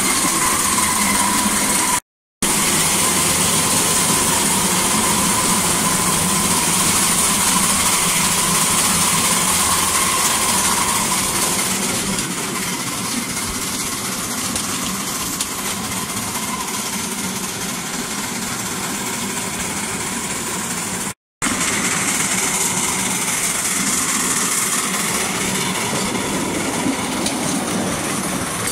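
Miniature vertical-boiler steam locomotive and its riding truck running steadily along the rails, with a continuous running noise from wheels and engine. The noise is louder inside a tunnel for about the first twelve seconds, then a little quieter in the open. The sound cuts out briefly twice.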